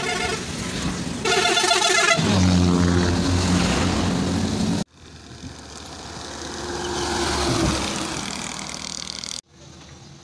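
A loud multi-tone vehicle horn blares, wavering in pitch for its last second, and then a minibus engine passes close by. After an abrupt cut, another minibus comes up and passes, its engine and tyre noise swelling and fading.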